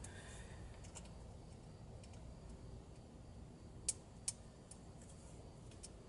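Faint clicks and taps of a hand working the T-MAP sensor seated in the intake, a snug fit, with two sharper clicks about four seconds in.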